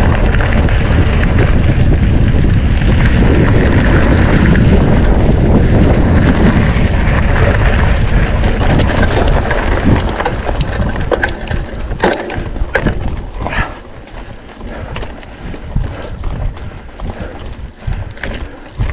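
Mountain bike ridden over a dirt and gravel track, with heavy wind buffeting on the microphone for the first half. About halfway the wind drops, and the tyres crunch over loose stones among sharp clicks and rattles from the bike.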